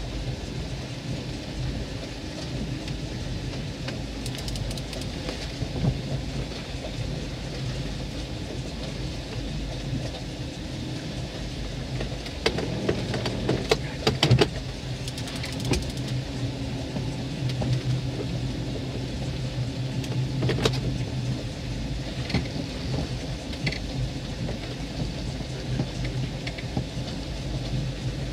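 A boat's engine running steadily under a rushing wind-and-water noise. A cluster of sharp clicks and knocks comes about halfway through, with another single knock a few seconds later.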